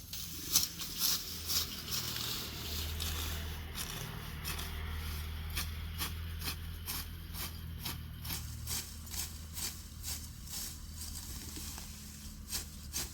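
Hand sickle slicing through grass stalks in quick repeated cutting strokes, about two a second, over a low steady hum.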